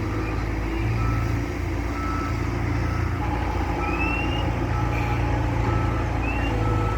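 Diesel engine of a construction loader running steadily while its reversing alarm beeps about once a second. Two short rising squeals sound partway through.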